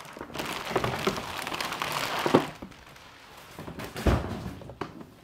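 Plastic wrapping and a cardboard box rustling and crinkling as a ride-on toy is unpacked, with a few small clicks and a dull thunk about four seconds in.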